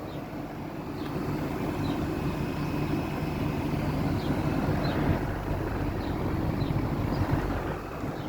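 Mastertech air conditioner outdoor unit running with a steady hum and a rushing fan noise.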